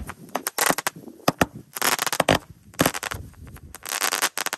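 Happy Planets grand finale firework going off: clusters of rapid bangs and crackling breaks about once a second, stopping abruptly near the end. The shots come so fast it seems quick-fused.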